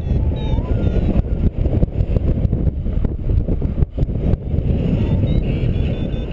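Wind noise on the microphone of a paraglider pilot's camera in flight, steady and loud, with a brief dip nearly four seconds in.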